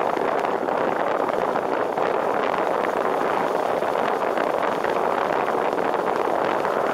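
Steady rush of wind and road noise on the microphone of a camera mounted on the roof of a moving car, driving on a wet road.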